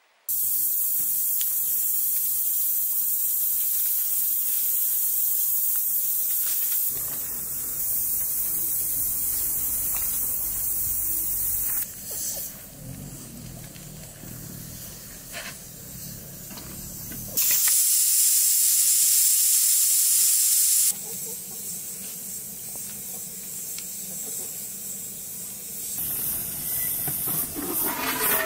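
Steady hissing noise that shifts abruptly in level and tone several times, loudest for a few seconds past the middle. A few light knocks near the end come as a metal pot lid is lifted.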